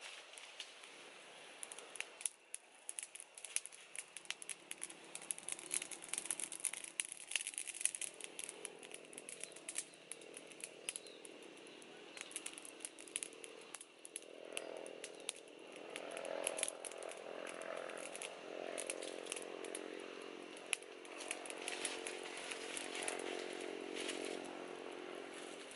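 Crackling and rustling from a small wood cooking fire and dry leaves and twigs being handled, with sharp clicks that are densest in the first third. About a third of the way in, a small engine starts droning steadily in the background and goes on to become the loudest sound.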